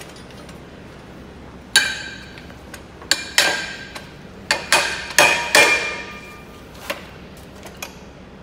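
Sharp metal-on-metal clanks against steel pipe clamped in a pipe vise, as pipe wrenches strike and grip it; about eight strikes, starting nearly two seconds in and ending about seven seconds in, each ringing briefly.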